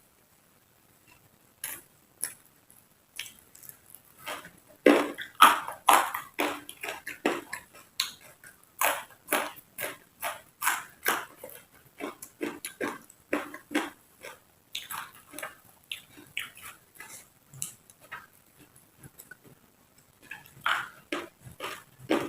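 Close-up chewing of raw vegetables: an irregular run of crisp crunches and wet mouth clicks, two or three a second, thickest in the middle stretch.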